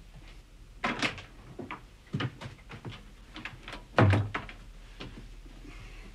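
Several light knocks, then a wooden door handled with a heavy thump about four seconds in.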